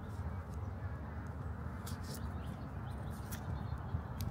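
Steady low outdoor background rumble, with a few faint light clicks as a plastic card is worked under the edge of a tablet screen protector.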